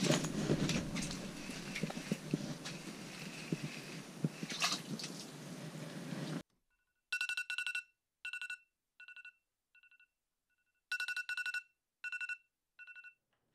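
Rustling and scattered knocks of hands and gear inside an ice-fishing shelter. About six seconds in the noise cuts off suddenly, and a phone alarm sounds: short groups of high, single-pitch beeps, repeated with pauses and varying in loudness.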